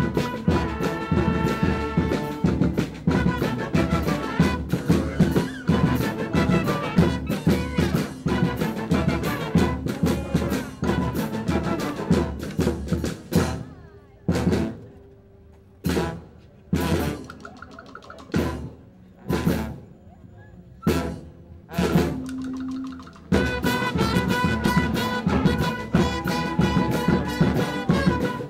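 Brass band with drums playing a loud, rhythmic tune. Midway the band drops out to a string of separate drum hits and a few short horn notes, and the full band comes back in about five seconds before the end.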